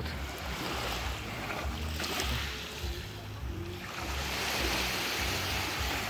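Small waves of a calm sea washing over a pebble beach, the surf hiss swelling twice.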